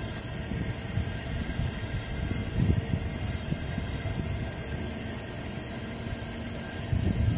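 Burner of a vintage Coleman 425E camp stove running on diesel: a ragged, fluttering low rumble over a steady hiss, swelling about two and a half seconds in and again near the end. It is burning with an unstable yellow flame because the generator cannot get hot enough to vaporize the diesel.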